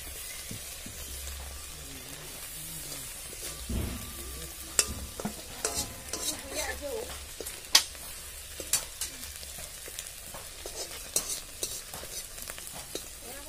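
Onion leaves and coriander leaves frying with a steady sizzle in a black wok, stirred with a metal spoon. From about five seconds in, the spoon clinks and scrapes sharply against the pan, the loudest sounds here.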